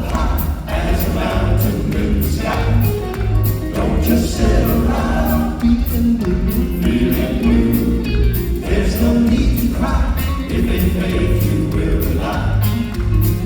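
Gospel vocal group singing in harmony with band accompaniment over a steady beat.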